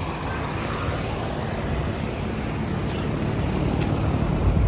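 A steady low rumble, growing slightly louder toward the end.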